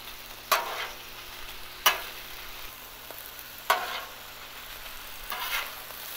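Thinly sliced steak, onions and peppers sizzling on a flat-top griddle, with metal spatulas scraping and clacking on the steel four times as the meat is turned and piled.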